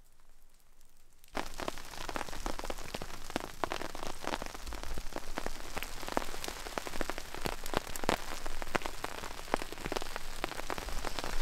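Heavy rain drumming on a tarp overhead: a dense, steady patter of drops that starts abruptly about a second in.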